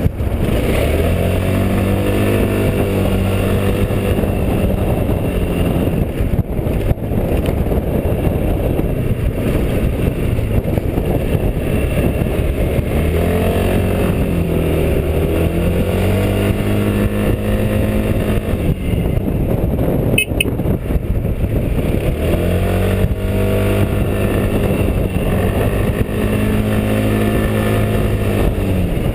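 Quadro 350D tilting scooter's engine pulling uphill, heard on board. Its note holds steady, then sags and picks up again a few times as the throttle is eased and reopened, over a heavy rush of wind on the microphone.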